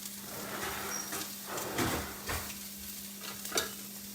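Ahi fillets frying on a flat-top griddle with a steady sizzle, and a few short scrapes and clinks of a cooking utensil around the middle and again near the end.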